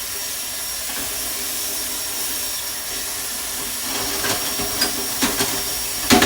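Tap water running steadily into a kitchen sink, with dishes and utensils clinking from about four seconds in and a louder knock near the end.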